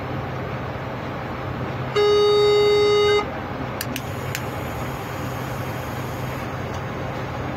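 Locomotive horn sounded once, a single steady note lasting just over a second, over the steady running noise of the train heard from the cab. A couple of sharp clicks follow.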